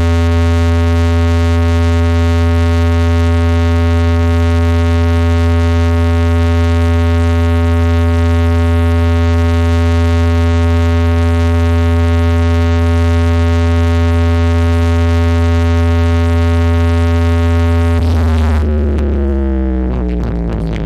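A loud, steady, deep synthesized bass tone played through a DJ sound system as a sound check. It is held on one pitch for about eighteen seconds, then slides downward near the end.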